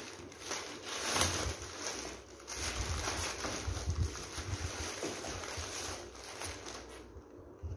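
Plastic courier bag rustling and crinkling as it is torn open and a cardboard box is pulled out of it, over a low rumble. The rustling stops about seven seconds in.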